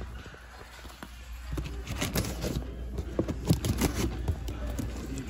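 Cardboard shipping cases being handled and shifted against a wire stocking cart: scattered light knocks, taps and scrapes that begin about a second and a half in, over a low store hum.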